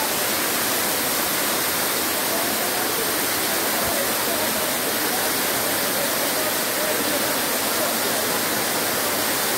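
Tall waterfall plunging down a rock cliff: a steady, unbroken rush of falling water.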